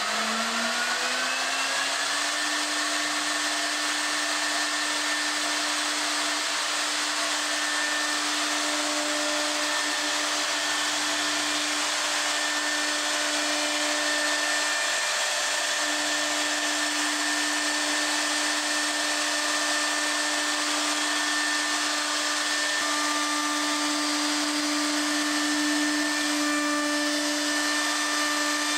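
Electric router spindle on a woodworking machine spinning up, its whine rising over the first two seconds, then running at a steady high whine while its bearing-guided bit routes a recess into a walnut drawer front.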